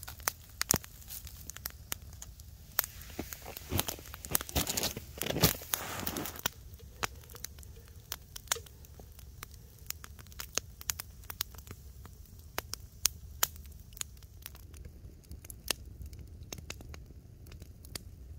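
Wood campfire crackling, with irregular sharp pops and snaps throughout. In the first six seconds there is louder rustling and knocking as a metal pot of snow is set into the fire.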